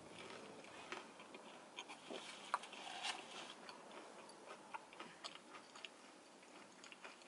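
Quiet close-up chewing of a cheese-filled jalapeño popper, heard as small irregular wet clicks and smacks from the mouth.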